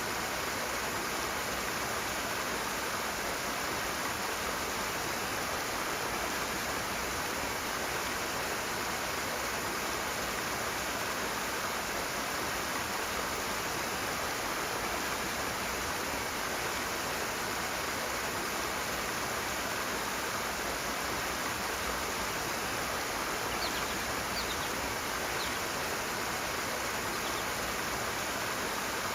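Rushing water of a fast stream, a steady even rush. A few faint short high chirps come in near the end.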